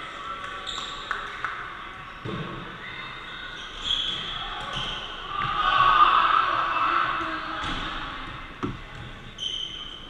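Dodgeballs hitting and bouncing on a wooden gym floor, a few sharp thuds, amid shouting from players and onlookers in an echoing hall; the voices are loudest about six seconds in.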